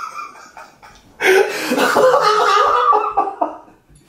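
Men laughing hard. The laughter dies down briefly, bursts out again loudly about a second in, and trails off near the end.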